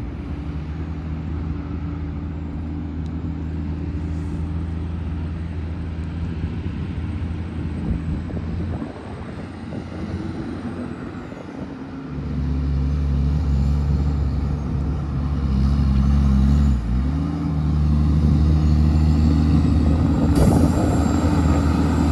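Heavy diesel truck engine running steadily. About nine seconds in it eases off, and from about twelve seconds it pulls louder, with a short dip near seventeen seconds.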